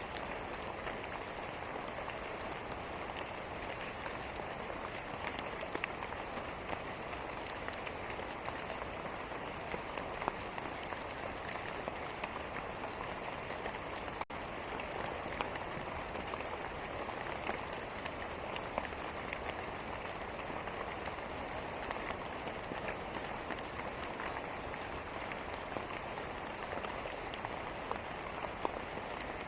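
Steady rain falling: an even hiss with scattered ticks of drops. The sound cuts out for an instant about halfway through.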